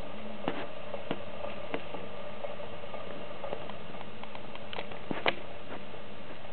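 Irregular light taps and clicks over a steady low hiss, the sharpest about five seconds in.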